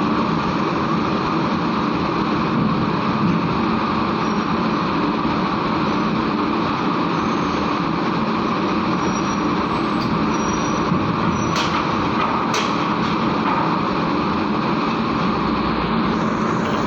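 Heavy tronton truck's diesel engine running steadily as it drives off a ferry, with two sharp knocks about a second apart roughly two-thirds of the way through.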